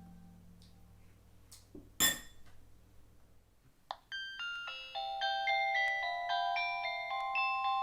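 Background music: the tail of an acoustic guitar piece fades out, a single sharp click sounds about two seconds in, and a bright glockenspiel-like mallet melody begins about four seconds in.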